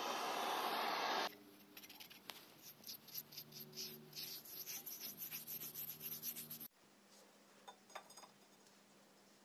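Butane canister blowtorch hissing, cut off about a second in. Then a brush scrubs in quick strokes along a steel bar for about five seconds, followed by a few faint knocks.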